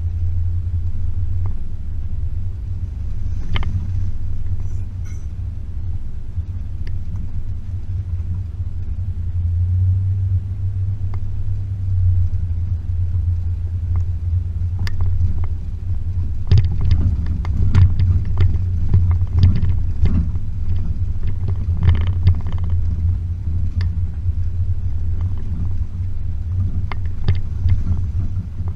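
Range Rover P38's 4.0-litre V8 running low and steady as the vehicle drives along a rough track, with scattered knocks and rattles that come thicker in the second half.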